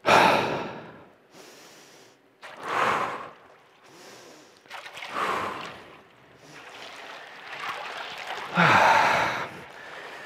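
A man's deep, forceful breaths, close on a headset microphone, as he lowers himself into an ice bath: four strong breaths a few seconds apart. It is controlled breathing to settle the body's stress response to the ice-cold water.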